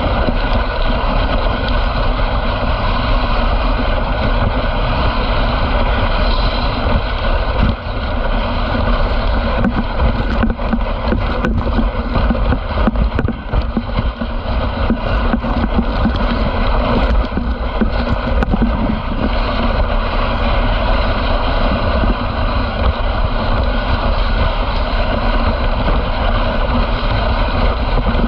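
Dog sled moving fast over a groomed snow trail: a steady, loud rush of the runners on packed snow, mixed with wind on the microphone. A few small knocks come from the sled between about ten and nineteen seconds in.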